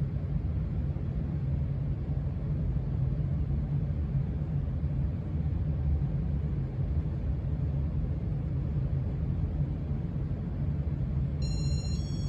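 Steady low rumble of a building's HVAC system running. Near the end there is a short high electronic chime of a few stepped tones.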